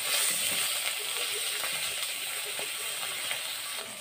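Egg omelette pieces sizzling as they fry in a little oil in a wok, a steady hiss, with a few light taps of the turning utensil against the pan.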